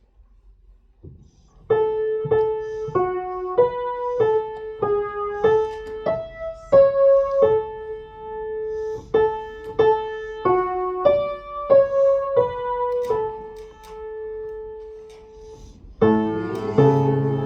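Piano playing a hymn melody one note at a time, then breaking into full chords near the end.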